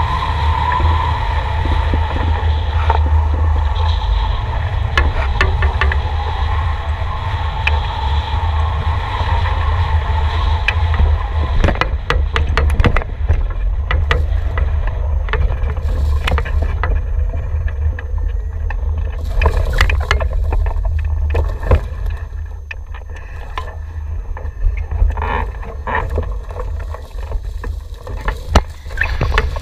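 Airflow rushing over the microphone of a camera mounted on a hang glider's wing in low flight, with a steady low rumble. The rush eases over the last several seconds as the glider slows and touches down. Scattered knocks and rattles come through near the end.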